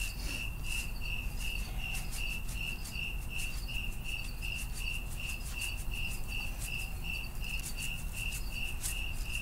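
A cricket chirping steadily, about three short high chirps a second, with irregular light ticks of dried minced garlic being shaken onto the meat.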